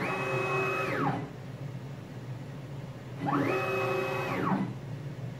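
NEMA 34 stepper motor directly driving a CNC router's Z-axis screw, whining through two moves: near the start and again about three seconds in. Each time the pitch rises as the axis accelerates, holds steady, then falls as it stops. This is the Z axis at its reduced 300 in/min rapid speed, the setting at which it no longer loses steps.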